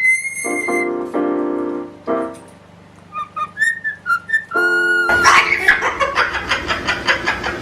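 Whistled notes that glide up and down, alternating with lower, buzzy drawn-out calls. About five seconds in, an abrupt change to a louder, rapid rhythmic chatter.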